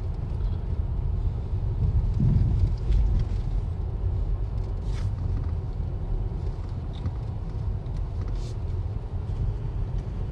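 Steady low road rumble heard inside a car rolling over a bumpy dirt road, with a heavier jolt about two seconds in and a few faint rattles later.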